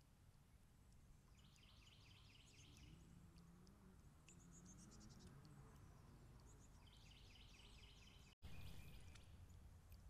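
Faint outdoor background with a distant songbird giving a quick trill of rapidly repeated notes, twice. A faint low drone rises and falls in between.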